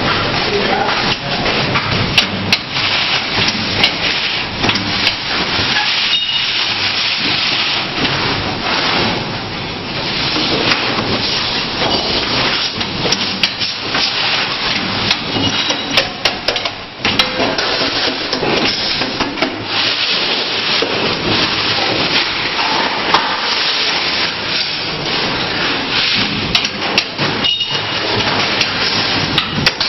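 Resistance spot welder working on sheet steel: repeated sharp clacks and crackling over steady, loud workshop noise.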